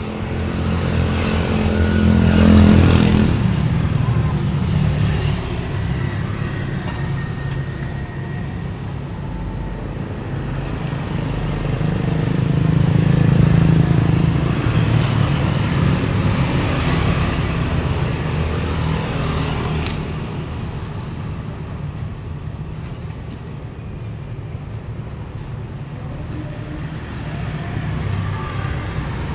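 Road traffic: cars and motorcycles passing one after another, the engine and tyre noise swelling loudest about two and a half seconds in and again about thirteen seconds in, then easing off.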